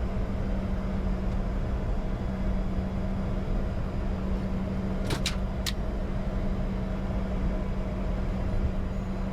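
Steady cockpit noise of a Bombardier Challenger 605 taxiing with its engines at idle: a constant low hum and rushing air, with a few short clicks about five seconds in.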